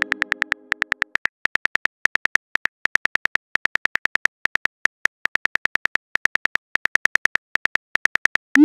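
Virtual phone-keyboard typing clicks: a fast, even run of short key taps, about nine a second, with a few brief gaps. A fading chime tone lies under the first second, and a short rising swoosh near the end marks a message being sent.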